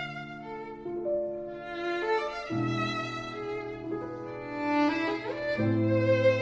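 Background music: a violin melody over sustained low string notes, with the low harmony changing about every three seconds.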